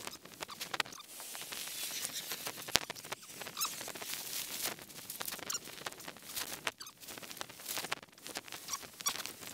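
Irregular clicks and crunches of footsteps on loose, broken stone, mixed with the crinkle and rustle of a black plastic trash bag and plastic litter being handled.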